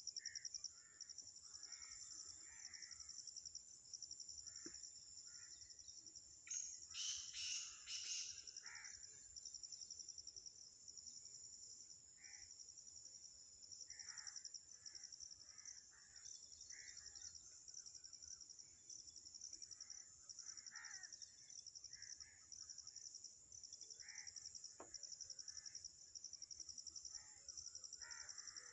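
Black francolin (black partridge) calling: a loud, harsh run of three or four notes about seven seconds in, with softer bird calls scattered around it over a steady high-pitched insect trill.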